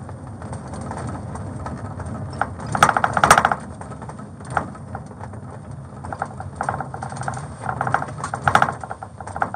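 Steady low hum of a patrol car heard from inside its back seat, with scattered light clicks and a few short, muffled voices.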